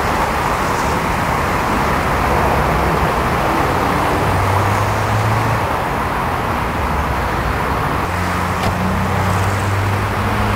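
Heavy, slow-moving car traffic on a multi-lane city road: a steady wash of engine and tyre noise. A low engine drone from nearby cars comes in about four seconds in and again in the second half.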